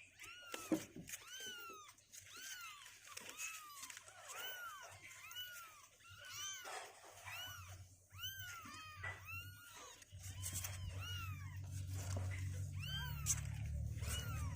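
Two-week-old kittens mewing over and over, short high calls that rise and fall, about one or two a second. From about ten seconds in, a low steady rumble joins underneath.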